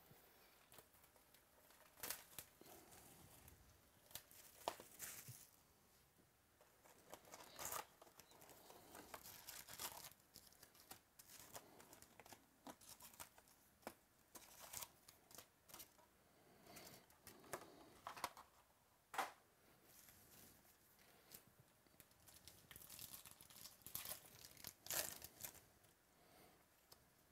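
Quiet, scattered rustling and tearing as a Stadium Club baseball card box is opened: its wrapping and cardboard handled, then a card pack torn open.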